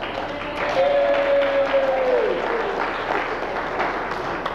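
Audience applauding, with one long held call or note over the clapping that slides down in pitch about halfway through.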